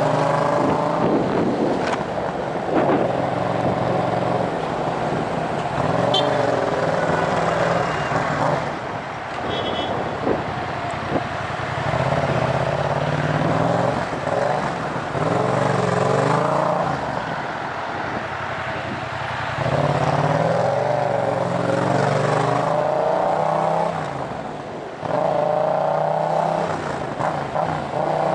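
2014 Yamaha MT-07's parallel-twin engine through a Tiger full exhaust system with decat headers, loud. It repeatedly revs up and drops back as the bike pulls forward in short surges, several times over.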